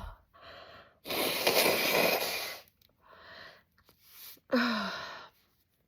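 A woman sneezing, with quick breaths between: a long, loud, forceful blast about a second in and a sharp, shorter voiced sneeze near the end.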